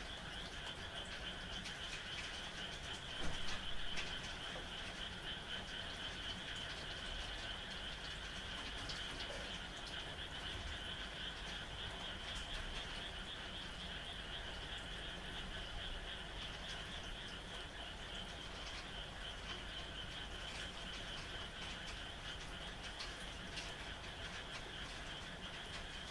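A chorus of many frogs calling at night, a steady pulsing trill over the hiss of falling rain, with a brief louder burst about three seconds in.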